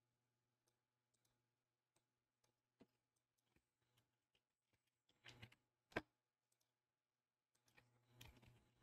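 Faint, scattered clicks of a computer mouse and keyboard keys over a low hum, with a short run of taps about five seconds in, one sharper click just after, and a flurry of typing near the end.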